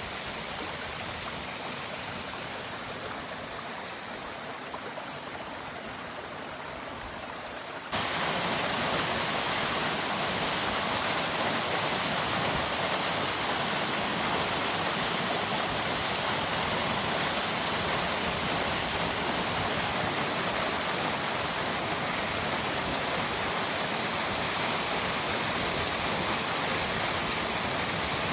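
Waterfall: a steady rush of falling water. It jumps sharply louder about eight seconds in.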